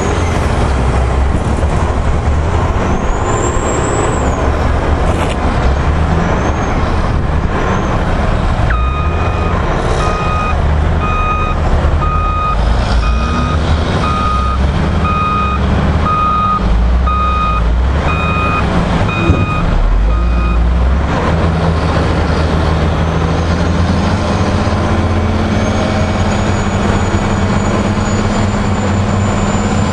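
Heavy diesel earthmoving machinery running steadily, including a Caterpillar 825 soil compactor. Mid-way a reversing alarm beeps about once a second for roughly twelve seconds. Near the end an engine revs up a little.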